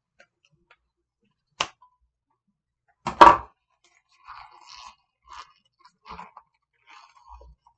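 A sharp snip of fabric shears about a second and a half in, then a loud clack as the shears are set down on the sewing table just after three seconds. After that, soft, uneven rustling and crinkling of leather and fabric lining as the clutch is handled and its corners worked out.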